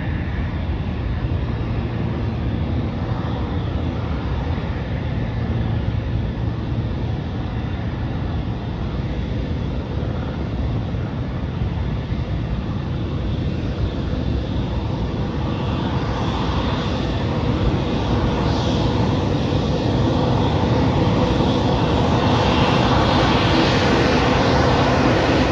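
Delta Airbus A220 jet's turbofan engines at taxi power, a steady rumble and whine growing louder over the second half as the jet approaches.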